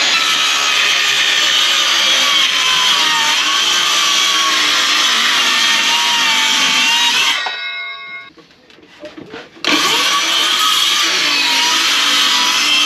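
DeWalt cordless circular saw cutting plywood, its pitch wavering slightly under load. About seven seconds in it stops and winds down, then starts again and cuts on from about ten seconds in.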